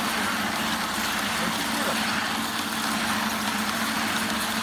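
Dazzini TCI260VH chain saw machine running steadily, its long chain bar cutting into sandy ground: an even mechanical hum with a constant low tone.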